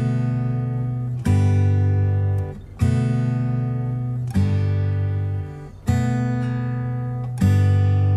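Background music: acoustic guitar strumming chords, one strum about every second and a half, each left to ring out and fade.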